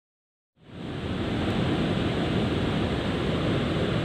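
Silent for the first half second, then a steady outdoor rushing noise fades in and holds, heaviest in the low end.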